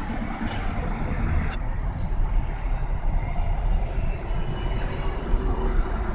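Steady low rumble of an idling motor vehicle, heard from inside a parked van.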